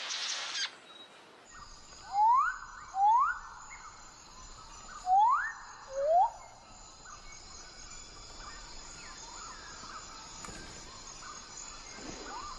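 A bird calls with four loud upward-sweeping whistles, in two pairs, over a steady high insect chorus of the forest. A brief rain-like hiss cuts off in the first second.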